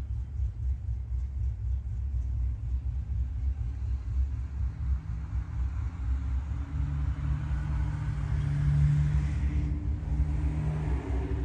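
Low, constant rumble, with a car engine's hum that comes in about five seconds in and grows louder before fading near the end.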